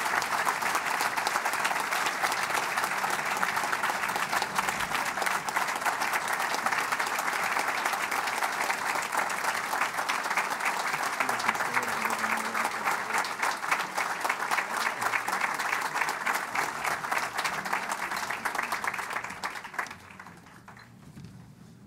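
A large audience applauding, a sustained dense clapping that dies away about twenty seconds in.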